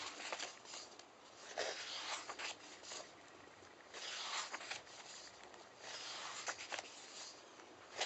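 Paper pages of a paperback workbook being turned by hand, one sheet after another: several separate swishing, rustling flips a second or two apart.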